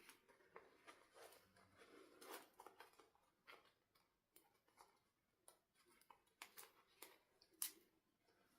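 Faint scattered clicks and short rustles of small plastic objects being handled, with one sharper click near the end.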